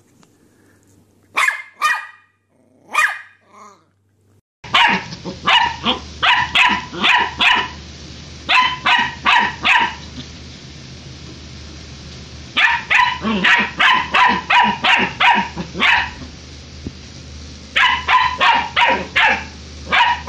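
A German Shepherd puppy barking in quick runs of short barks, about three a second, broken by pauses of one to two seconds. Before it, a dachshund puppy gives two or three single barks.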